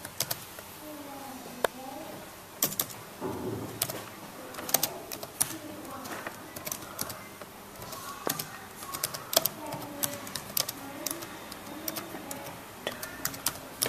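Computer keyboard being typed slowly, irregular key clicks a few per second as a phrase is entered letter by letter.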